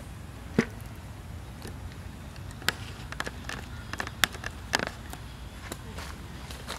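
Irregular sharp clicks and crackles from dry leaf litter, the loudest about half a second in and a cluster in the middle, over a steady low rumble.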